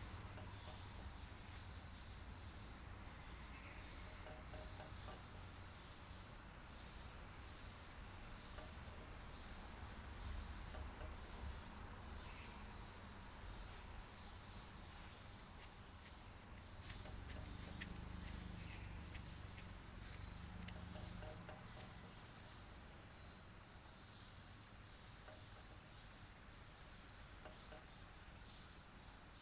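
Insects trilling steadily at a high pitch over a low fan hum, with a faster high pulsing between about 13 and 21 seconds in.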